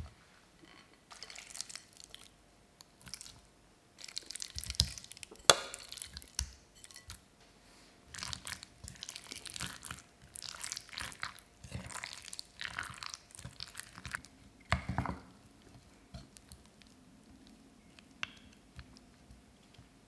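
Raw chicken pieces being stirred into thick batter in a glass bowl with a spatula: wet squelching in irregular bursts, with a few sharper knocks about five seconds in.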